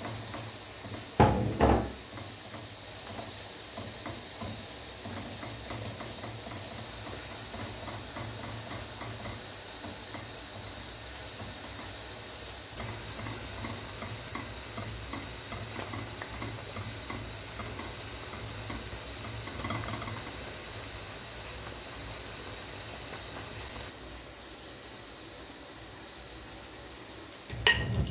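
A wire whisk stirring thick milk-and-rice pudding in a pot: steady rapid scraping and ticking against the pot. There are two sharp knocks about a second in and another near the end.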